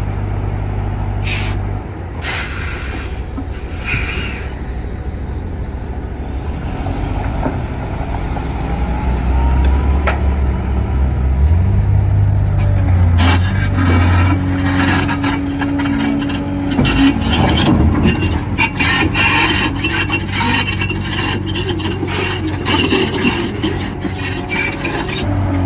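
Heavy diesel machinery running, its engine note rising and shifting about a third of the way in. There are a few bursts of air hiss in the first seconds and a long stretch of dense metallic clanking and rattling in the second half.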